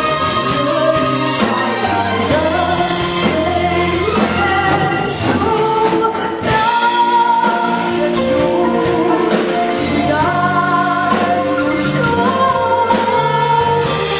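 A woman singing a slow Mandarin pop ballad with band accompaniment, in a live performance.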